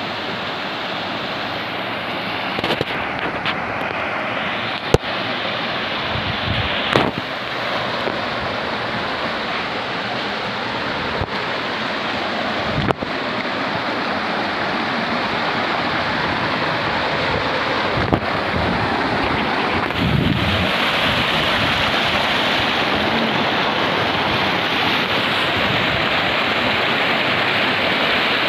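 Water rushing over rocks in a shallow rocky stream's small rapids: a steady hiss of white water, a little louder about two-thirds of the way in. A few brief knocks break in now and then.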